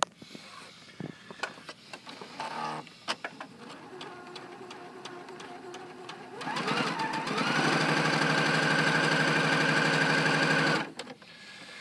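A Pfaff Quilt Ambition 2.0 sewing machine stitching stretchy fabric with its IDT dual-feed switched off. After a few light clicks, its motor starts about six seconds in, speeds up with a rising whine, and runs at an even, rapid stitching rhythm for about three seconds. It then stops suddenly.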